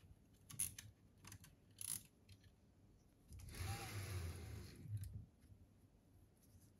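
Handling of a 3D printer's plastic cable drag chain and X carriage: a few light plastic clicks, then about two seconds of sliding, rattling noise as the carriage is pushed along its rail and the chain links flex.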